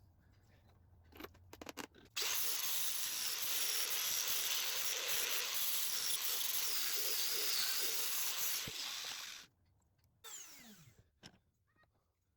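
Angle grinder grinding the steel of a railroad-spike tomahawk head for about seven seconds, then stopping. A short burst follows, with the motor winding down in pitch.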